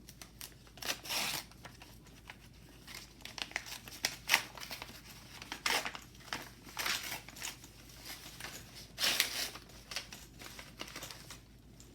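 Paper envelope being torn open and the greeting card inside pulled out and handled: irregular paper tearing and crinkling in short bursts, with a sharp rip about four seconds in.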